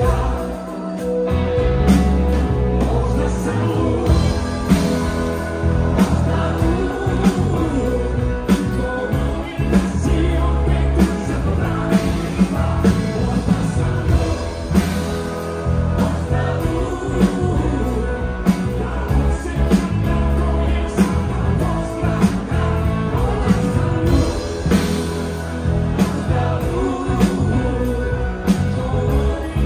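Live rock band playing: electric bass, guitars and drum kit with a steady beat, with singing over the band.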